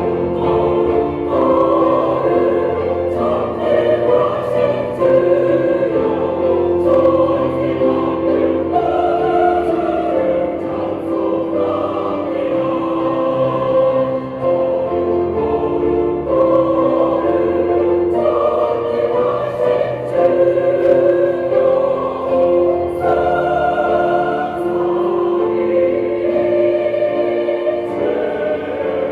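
Church choir singing a hymn anthem in several parts, with sustained held chords, over an instrumental accompaniment.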